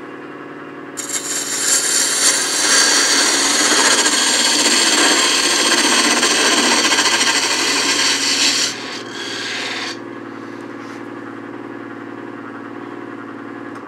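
Wood lathe running with a spindle gouge cutting the spinning pepper mill blank, shaping a large bead at its end. A loud, steady shaving hiss starts about a second in and cuts off near nine seconds, a lighter cut follows briefly, and then only the lathe's motor hum remains.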